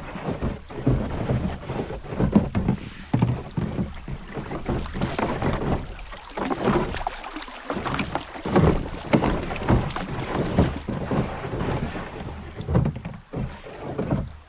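Loaded canoe going through a shallow gravel riffle: water rippling along the hull, with irregular low rubbing and knocking as the hull drags over the stony bottom.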